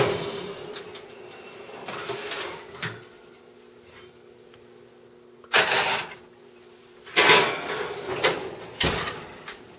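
Oven door opening with a sharp clack, then an amber glass casserole pot holding a whole baked pumpkin dragged out over the metal oven rack and set down on an electric range top, giving scraping bursts about five and a half seconds in and a run of knocks and scrapes from about seven to nine seconds. A steady low hum runs underneath.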